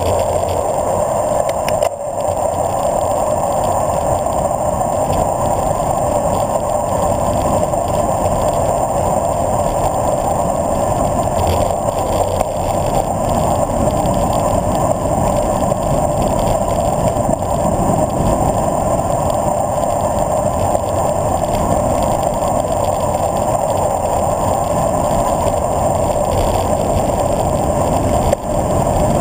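Steady rush of wind buffeting a handlebar-mounted camera on a road bike descending at speed. The loudness dips briefly about two seconds in and again near the end.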